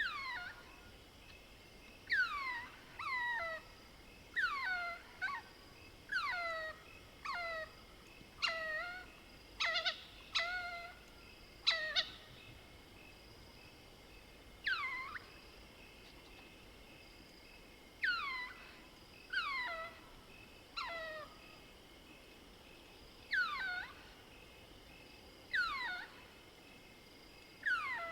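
Mohol's bushbaby (southern lesser galago) giving a long series of short squeaking cries, each sliding down in pitch, repeated about once a second with a few pauses of two to three seconds.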